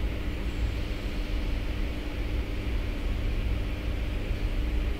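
Steady low hum and hiss of running machinery, with a faint constant tone and no distinct clicks or strokes.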